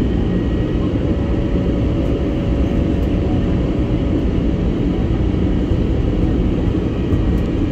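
Steady cabin noise inside an Airbus A320neo on its landing approach: engine and airflow rumble, heaviest in the low range, loud and unbroken. A faint hum at one steady pitch runs above it for a few seconds, starting about a second in.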